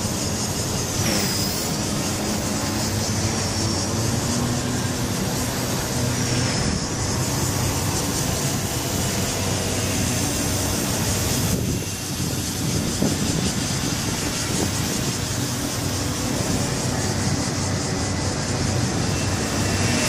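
Walkera V120D02S micro RC helicopter's electric motor and rotor whine running steadily in flight. Its high whine dips and comes back up in pitch three times in the first seven seconds, and the sound swells briefly as the helicopter passes close at the end.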